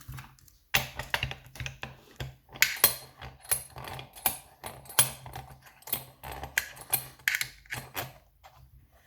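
Metallic clicking and clattering from lever mortice locks and keys being handled: irregular sharp clicks, some with a brief high ring, about a dozen a second at the busiest.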